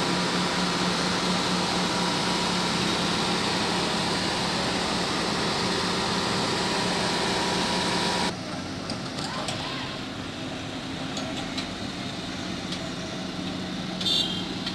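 Heavy diesel engine of a truck-mounted crane running steadily, with a constant low hum. About eight seconds in, the sound drops abruptly to a quieter background with scattered clicks, and a brief high beep comes near the end.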